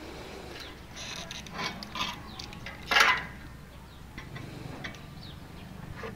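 Hand tools tapping and scraping on steel as welding slag is chipped off a weld with a screwdriver and a makeshift hammer: a few light metallic knocks and scrapes, the loudest a sharp strike about three seconds in, over a low steady hum.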